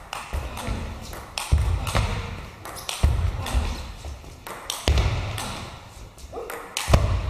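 Table tennis rally: the ball clicks sharply off the rackets and the table several times a second, with heavier low thuds now and then, echoing in a large sports hall.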